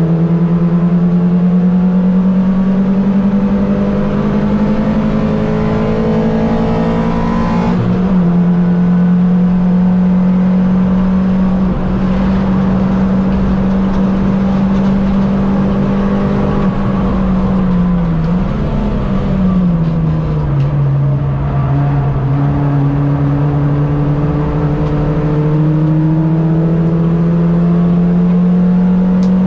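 Mini racing car's engine running hard at high revs. Its note climbs slowly and falls back sharply about eight seconds in, then wavers and drops again about twenty seconds in, as at gear changes or lifts off the throttle.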